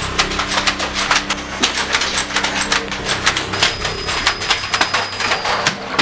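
Nerf dart blasters firing in a rapid exchange: a quick, dense clatter of sharp clicks and snaps, several a second.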